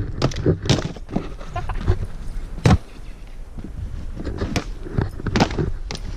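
Footsteps crunching in deep snow, irregular, with one sharper crunch about two and a half seconds in.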